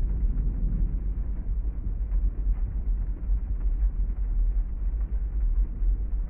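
Rain on a parked car, heard from inside the cabin: a steady low rumble with faint, scattered ticks of drops.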